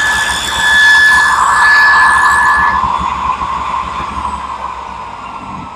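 Table saw with a dado blade running at speed through a cut, a steady whine over a band of cutting noise. About three seconds in the whine stops and the saw's pitch slowly falls as the blade coasts down after being switched off.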